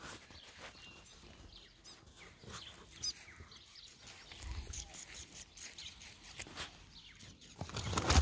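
A small bird calling a few short high chirps over faint rustling and handling noise; near the end, louder rustling as the phone brushes through long grass.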